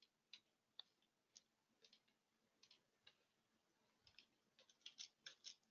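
Near silence broken by faint, scattered computer clicks, with a quick run of them near the end.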